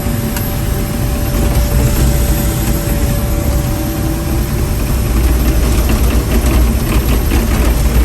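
Caterpillar D6M XL dozer's diesel engine running loud and steady, heard from inside the cab, with a deep rumble and a thin steady whine that fades out about halfway through.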